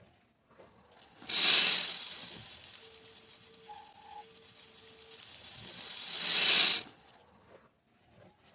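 Beads pouring in a stream: a dense rattling hiss that starts suddenly about a second in, thins out, then swells again and stops abruptly near the end.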